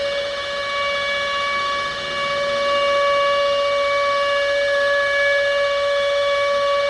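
Air-raid siren wailing, held at a steady high pitch after its rise.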